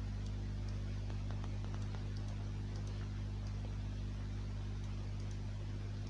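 Steady low electrical hum in the recording, with a few faint clicks scattered through it.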